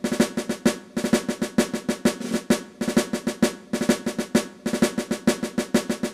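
Intro music: a snare drum playing a fast rhythmic pattern with rolls, stopping near the end.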